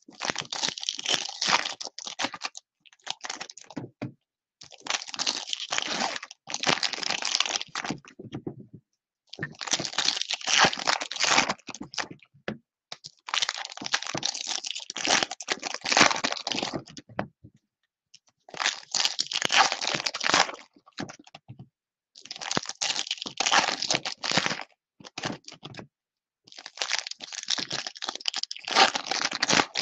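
Plastic trading-card pack wrappers being torn and crinkled by hand as packs of 2018 Topps Finest baseball cards are opened, coming in bursts of a second or two with short pauses between.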